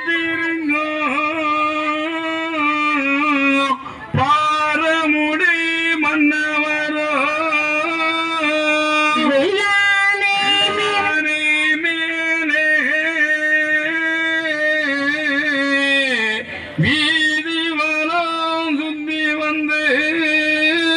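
Ayya Vazhi devotional chanting: a voice singing long held notes with winding ornaments, broken by two brief pauses, about four seconds in and again past the three-quarter mark.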